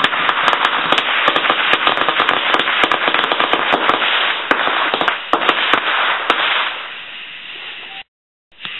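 Fireworks going off: a dense run of rapid crackling pops over a hiss for about six and a half seconds, then dying down. The sound cuts out briefly near the end.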